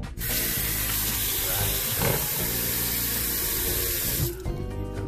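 Kitchen tap running hard into a sink to rinse raw chicken, starting just after the beginning and shutting off about four seconds in.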